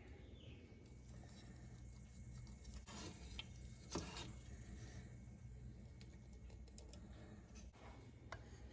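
Faint clicks and scrapes of a ceramic serving spoon against a cooking pot and a bowl while ladling stew, the clearest knock about four seconds in, over a low steady hum.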